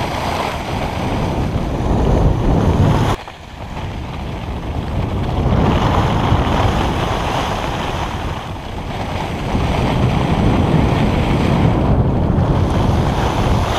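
Wind rushing and buffeting over an action camera's microphone while skiing downhill, mixed with the hiss of skis sliding over packed snow. The noise drops sharply about three seconds in, then builds again.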